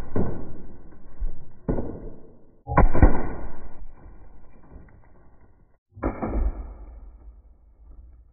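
Umarex HDR 50 CO2 air pistol firing 8-gram .50-calibre chrome steel balls into a water jug: three sharp shots about a second and then three seconds apart, the loudest about three seconds in, each trailing off over a second or so.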